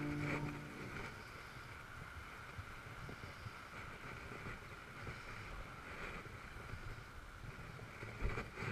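Inline speed skates rolling over pavement, with wind rumbling on the moving camera's microphone and faint swells every second or two. The tail of background music fades out at the start, and a single bump sounds near the end.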